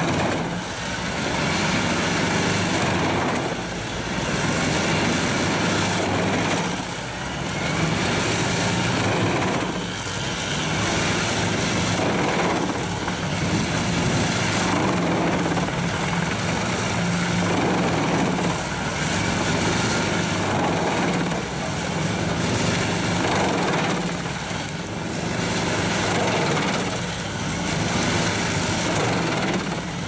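Pezzolato PTH 1200/820 truck-mounted drum wood chipper, powered by its 480 hp MAN engine, running under load as it chips branches and logs: a loud, steady drone whose level dips briefly about every three seconds.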